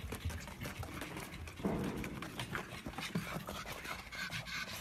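A pug panting, with quick, rapid taps of its paws as it runs on a treadmill belt.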